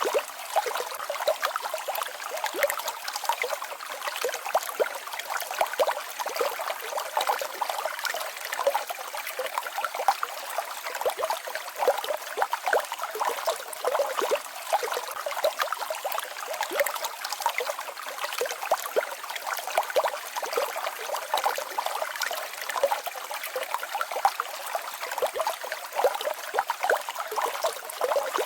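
Small mountain waterfall babbling and trickling steadily. The sound is light and splashy, made of many small splashes with no deep rumble.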